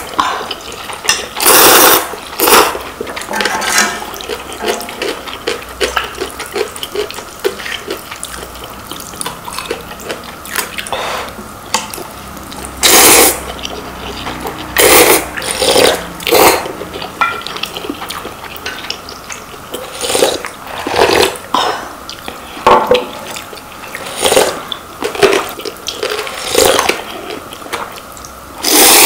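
Two people eating ramen, slurping noodles and broth in loud, noisy slurps every few seconds, with softer chewing and mouth smacks between them.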